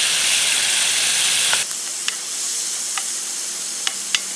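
Pineapple, corn and vegetables frying in a hot pan: a strong sizzle that drops suddenly to a quieter sizzle about a second and a half in, with a few sharp pops.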